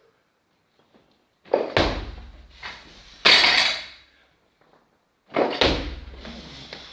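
Loaded barbell with bumper plates and a lifter's feet on the platform during a split snatch: three loud thuds and clanks with rattling. The last one comes about five and a half seconds in, as the bar is pulled from the floor.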